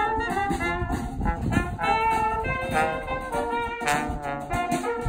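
Brass band playing an upbeat jazzy tune, trumpets and trombone carrying the melody in held, changing notes, with a short sharp click about four seconds in.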